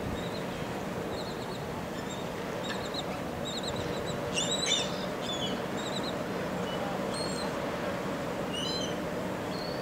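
Birds chirping and calling in short high notes, busiest about halfway through, over a steady background noise.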